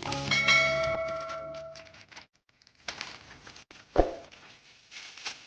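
Background music with chime-like notes fades out over the first two seconds. Then cardboard packaging rustles, with one sharp knock about four seconds in.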